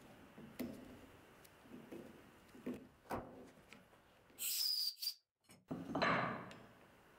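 Small clicks and creaks of a hand tap and tap wrench cutting threads in an aluminium square tube, then two rushes of noise, the first high with a thin whistle and the second louder and fuller, as the aluminium chips are cleared from around the tapped hole.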